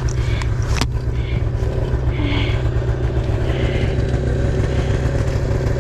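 Old snowmobile's two-stroke engine running steadily, with one sharp knock about a second in.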